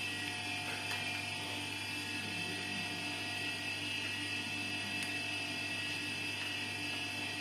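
LED TV panel laser repair machine running: a steady electrical hum with a high whine over it, and a few faint ticks.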